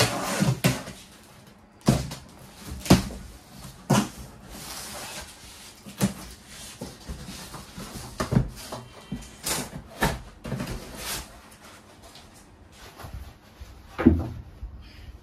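A cardboard box being opened by hand: a blade cutting the packing tape, then the flaps pulled open and packing paper handled, making a run of cardboard thumps and knocks with rustling between them.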